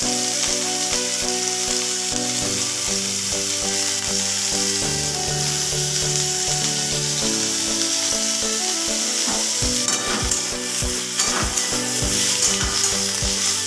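Halved pointed gourds sizzling steadily as they fry in hot oil in a kadai. From about the middle on, a spatula knocks and scrapes as they are stirred, over soft background music with held notes.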